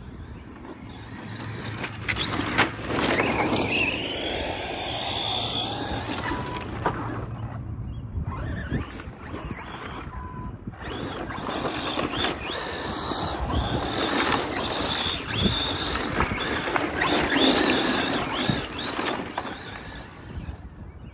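ARRMA Mojave 4S RC truck's brushless electric motor whining up and down as it is revved hard, with its tyres scrabbling and sliding on the pavement. The sound cuts out briefly twice near the middle.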